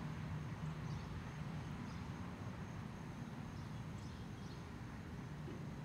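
Outdoor background noise: a steady low hum with a few faint, short high chirps scattered through it.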